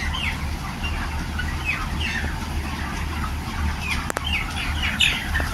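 A large flock of young broiler chickens peeping, with many short falling peeps overlapping, over a steady low hum. There is a sharp click about four seconds in.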